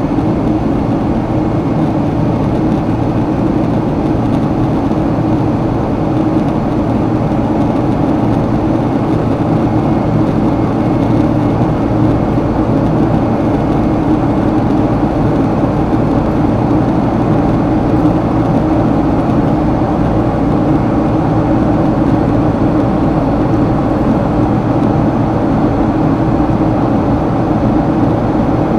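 Steady jet airliner cabin noise during the climb: the drone of the engines and rushing air, even and unbroken, with a faint steady high tone above it.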